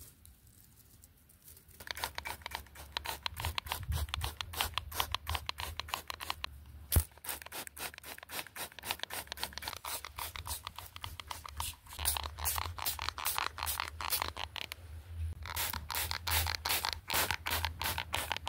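A hand spray bottle spritzed over and over in quick succession, about five sprays a second, starting about two seconds in, with short breaks about six seconds in and again near fifteen seconds.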